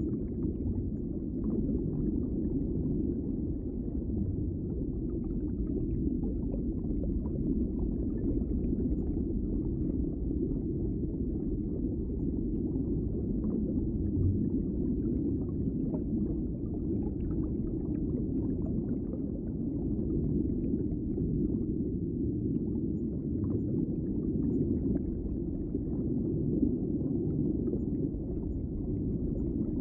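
Underwater ambience: a steady, muffled low rumble with faint scattered bubbly crackles.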